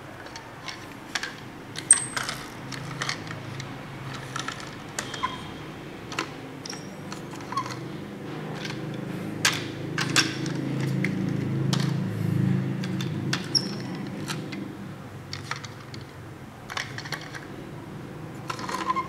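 Plastic toy trucks handled and set down on a tabletop: scattered sharp clicks and knocks of hard plastic, over a low rumble that swells in the middle as the toys are pushed along the table.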